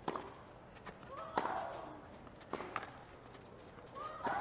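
Tennis rally: racket strikes on a tennis ball about every 1.3 seconds, four in all, with a player's short grunt on two of the shots.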